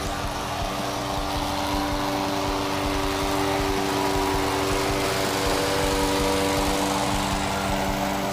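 Briggs & Stratton Vanguard 16 hp V-twin petrol engine of a remote-controlled tracked slope mower, running steadily at constant speed.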